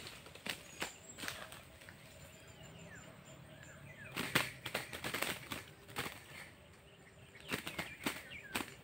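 A bird's wings flapping in three short flurries, about a second in, around four seconds in and near the end, with faint bird chirps between.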